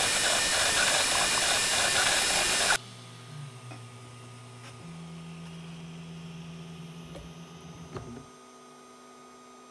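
FDM 3D printer at the end of a print. A loud steady fan rush cuts off suddenly about three seconds in. The stepper motors then hum at steady low pitches, stepping up twice, as the bed moves the finished part forward, with a few light clicks. A low steady hum is left near the end.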